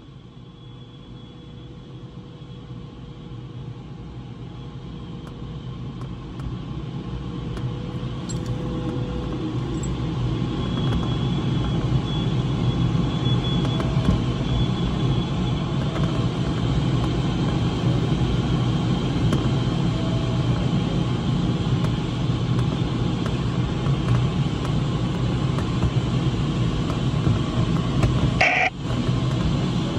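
Airflow rushing over a glider's canopy, heard inside the cockpit as a steady low rush that grows louder over the first ten seconds or so and then holds, with a brief break near the end.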